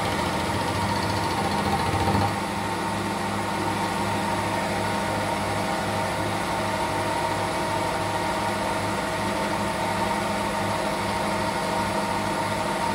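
Milling machine running steadily while a freshly resharpened endmill takes a side cut in a metal block with its side flutes, with a short louder patch about two seconds in.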